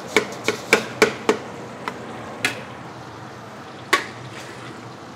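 Metal spatula clanking and scraping against a giant steel wok while stir-frying a large batch of fried rice with its dry seasoning: a quick run of five knocks in the first second or so, then three scattered ones, over a steady hiss.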